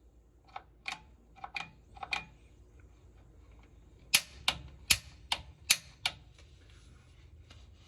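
Piezo igniter button on a Bradford White water heater's Honeywell gas control valve clicking as it is pressed over and over to spark the pilot. A few lighter clicks come in the first two seconds, then six sharp clicks about a third of a second apart.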